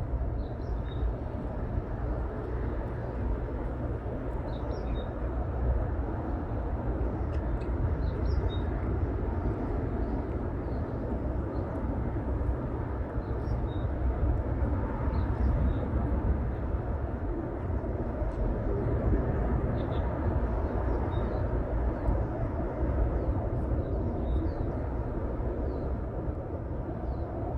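Steady low rumbling outdoor ambience, with faint, brief bird chirps scattered throughout.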